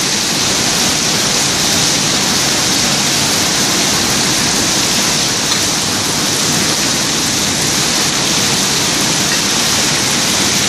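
Heavy rain falling, a steady loud hiss.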